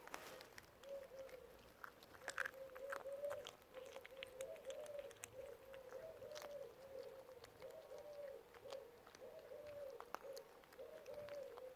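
A bird cooing: a continuous run of short, low, arched notes, about two a second, with scattered faint clicks.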